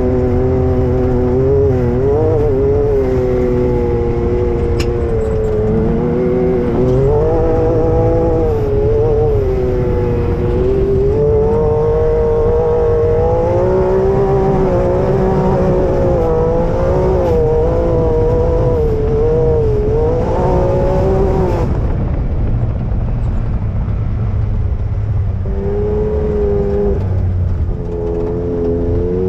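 Side-by-side UTV engine running hard while driving over sand dunes, its pitch rising and falling with the throttle, over a steady low rumble of wind and driveline. About 22 seconds in the engine note drops away for a few seconds, then comes back.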